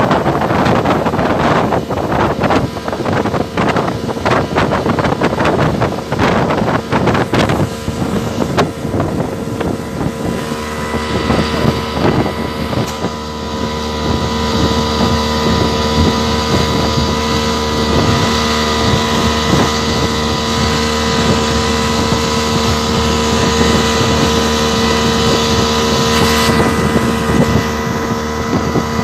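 Speedboat's 75 hp outboard motor running at speed with a steady whine. For the first eight seconds or so, wind buffeting on the microphone and rushing water cover it; from about ten seconds in the motor tone comes through clearly.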